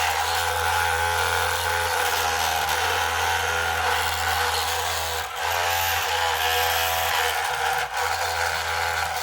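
Electric motors and gearing of an RC construction model running steadily with a whirring, power-tool-like sound, dipping briefly twice.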